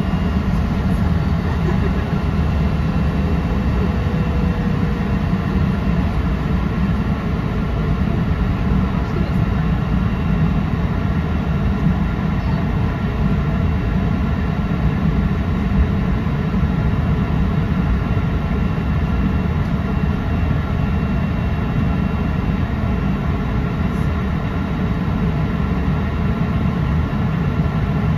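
Cabin noise of a Cessna Citation XLS business jet taxiing, heard from inside the cabin: its twin rear-mounted turbofans run at low taxi power, giving a steady low rumble with several steady whining tones above it.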